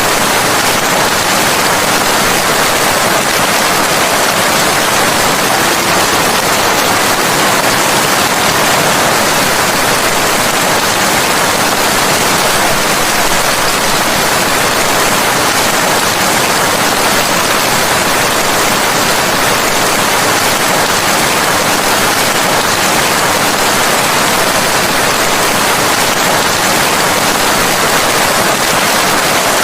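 Steady, dense rain hiss with no separate drops or thunder standing out.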